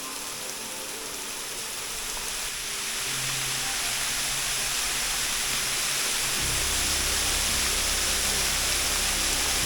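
Steady rush of falling water at the top of a waterfall, growing louder. Low sustained music tones fade in about three seconds in and deepen a few seconds later.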